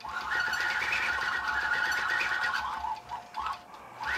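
Longarm quilting machine stitching steadily at 12 stitches per inch, with a steady whine over its run. It slows and drops away for a moment about three seconds in, then picks back up near the end as the head moves again.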